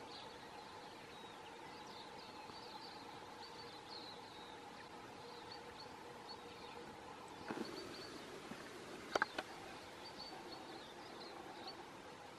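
Quiet bush ambience with faint high chirping throughout. A short rustle comes about seven and a half seconds in, and two sharp clicks just after nine seconds are the loudest sounds. No deer call is heard.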